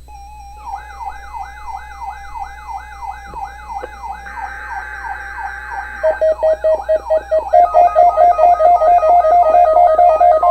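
Weather radio receivers sounding their alert alarms: a siren-like warble that sweeps upward about two to three times a second. About four seconds in there is a short screech of the EAS SAME data header, and from about six seconds a fast pulsing beep joins, making it louder. A steady tone comes in at the very end.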